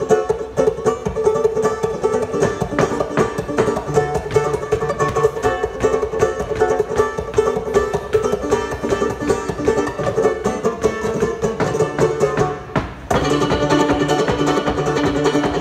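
Clawhammer banjo and fiddle playing a lively old-time tune. About thirteen seconds in the sound drops out for a moment, then the playing comes back fuller and steadier.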